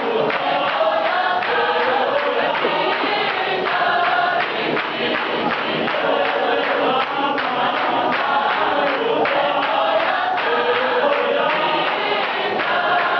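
Gospel mass choir singing in clap-and-tap style, many voices in harmony over a steady beat of hand claps and foot taps.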